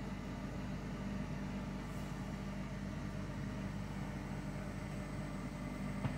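Panda 3,200 rpm portable spin dryer running a load of washed laundry: its motor and drum give a steady, even hum.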